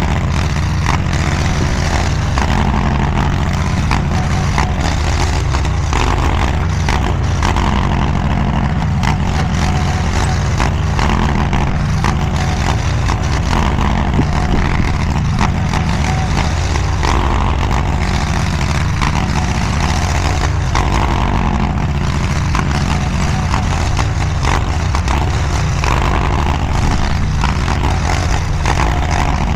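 DIGGIT SCL850 stand-behind mini skid steer running steadily while it works, with scattered small knocks and clatter over the engine.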